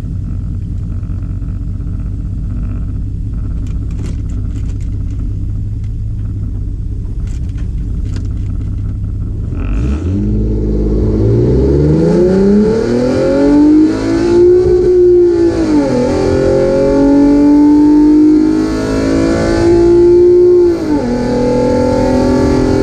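Ford 3.7 Cyclone V6 in a Foxbody Mustang idling at the line, then launching about ten seconds in and accelerating hard down the drag strip. The engine revs climb, hold flat against the rev limiter and drop at gear changes about 15 and 21 seconds in.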